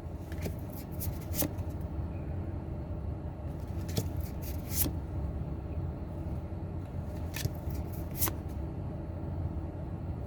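Magic: The Gathering trading cards being handled and flipped through, with several short sharp snaps and rustles of card stock over a steady low background hum.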